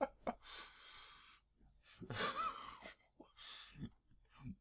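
A person's breathy vocal sounds: three exhalations in a row, the middle one voiced with a short rising and falling moan.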